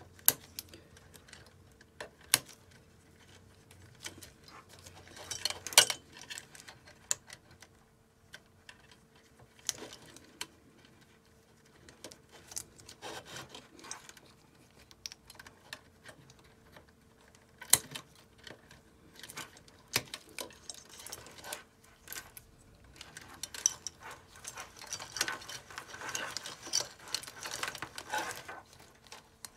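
Wire cutters snipping through a PC power supply's insulated output wires, one sharp click every few seconds. Between the cuts, gloved hands rustle the wire bundles, most of all near the end.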